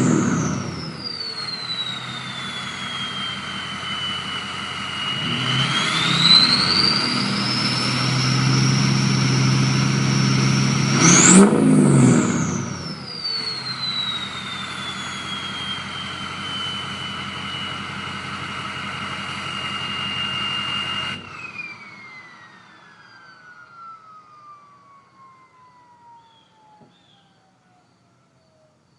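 2003 Ford 6.0 Powerstroke V8 turbo-diesel being revved, its turbocharger whistling: a high whistle falls after a rev at the start, rises and holds with a second rev, peaks sharply near 11 seconds, then settles to a steady whistle over the idle. About two-thirds through the engine sound stops suddenly and the whistle keeps gliding down in pitch for several seconds as the turbo spins down.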